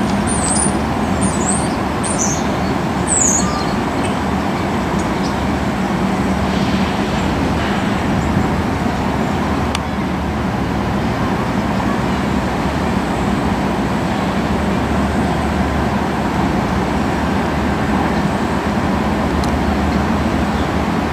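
Steady low rumble of slow-approaching diesel freight locomotives blended with road traffic, with a steady hum throughout. A few short bird chirps come in the first few seconds.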